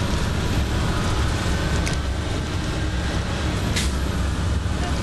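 Tour bus engine and road noise heard from inside the cabin while driving: a steady low rumble.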